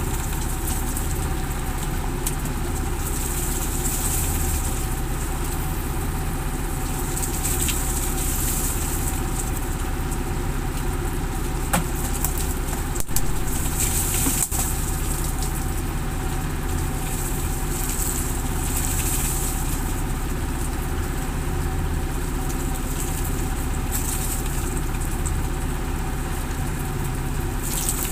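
Fishing boat's engine running steadily at idle, an even low rumble, with a high hiss that swells and fades every few seconds and a couple of short knocks about halfway through.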